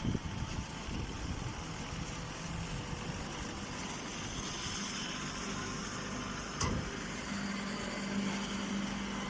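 Miniature automatic hay baler running, a steady machine drone with a short knock at the start and another about six and a half seconds in.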